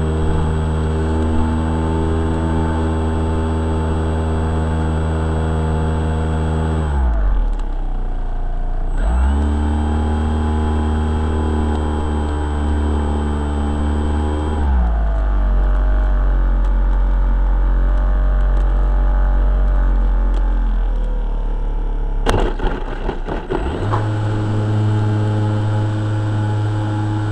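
Electric motor and propeller of a foam RC aerobatic plane, heard from inside the fuselage: a steady whine whose pitch follows the throttle. It drops away about seven seconds in, comes back two seconds later, settles to a lower note around the middle, and climbs again near the end after a couple of seconds of crackling.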